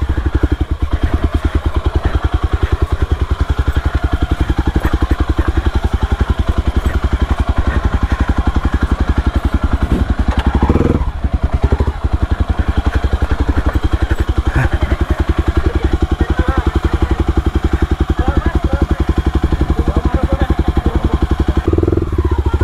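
Yamaha WR155R's single-cylinder four-stroke engine running at low revs: a loud, even beat of firing pulses, dipping briefly about halfway through.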